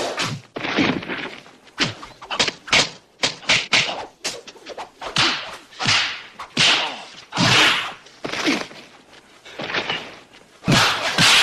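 Kung fu movie fight sound effects in quick succession: punch and kick impacts and swishing whooshes, one after another, about one or two a second.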